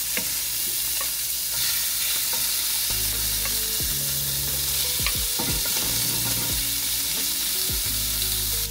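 Raw shrimp sizzling as they are slid one by one into hot olive oil in a frying pan for shallow frying, a steady hiss with small taps of a wooden spoon.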